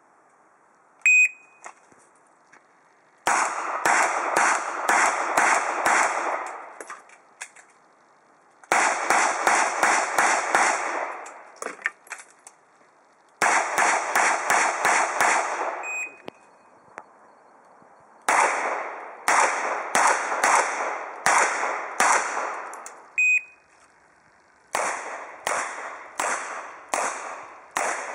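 A shot timer's start beep about a second in, then five strings of rapid handgun shots fired in competition. Each string holds several quick shots, separated by pauses of a couple of seconds.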